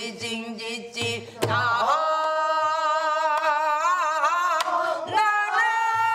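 A solo voice singing Korean traditional song, holding long notes with a wide vibrato, over a few sharp drum strokes.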